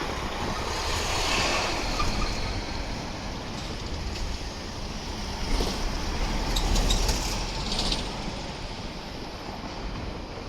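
Steady rumble of passing vehicles, swelling about a second in and again from about six to eight seconds, with some short high crackling in the second swell.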